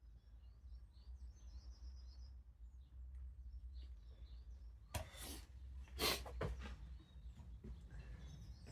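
Faint birds chirping over a steady low hum, with two short noises about five and six seconds in, the second the louder.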